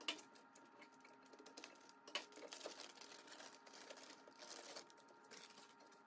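Faint, scattered small clicks and light rustling from hands removing foam packing and cut rubber bands inside the machine's cabinet.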